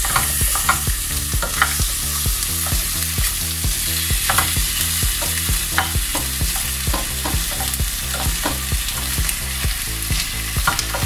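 Sliced potatoes and onion sizzling in oil in a ceramic-coated frying pan on a gas burner while a spoon stirs them, knocking against the pan in irregular clicks.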